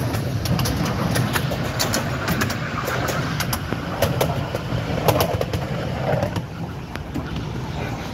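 Miniature railway train rolling along the track: a steady low rumble of the wheels with frequent sharp clicks and knocks from the rail joints.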